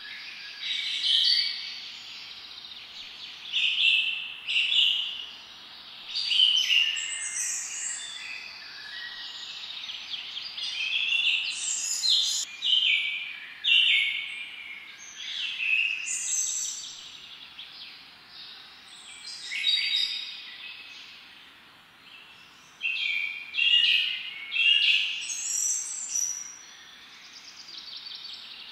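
Birds singing in the surrounding trees: short chirping and trilled phrases, repeated every second or two.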